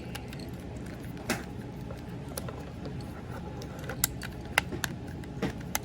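Plastic clicks and taps of a Transformers MPM Ratchet figure's parts being handled and tabbed together. The clicks are scattered and irregular over a steady low background hum.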